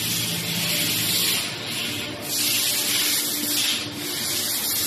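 CNC machining centres running in a workshop: a loud steady hiss with a faint low hum under it. The hiss breaks off briefly about two seconds in and again about four seconds in.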